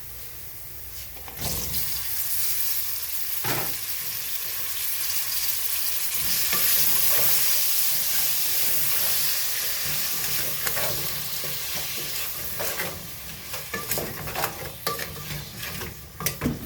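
Chopped tomatoes added to hot oil and browned onions in a cooking pot, sizzling; the sizzle rises sharply about a second in. A few clicks and scrapes of a utensil against the pan, more of them near the end.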